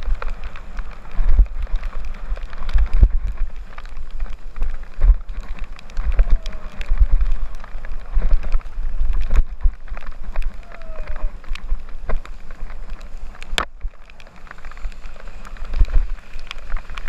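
Wind buffeting the microphone on a fast mountain-bike descent over a wet, rocky dirt trail, with the Rockrider 9.1 bike rattling and its tyres clicking and knocking over stones throughout. A short falling squeal sounds twice, about six and eleven seconds in, and one sharp knock stands out about thirteen seconds in.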